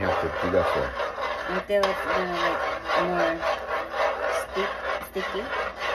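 A utensil scraping round a cooking pot in quick, repeated strokes, as when stirring maja blanca continuously while it thickens.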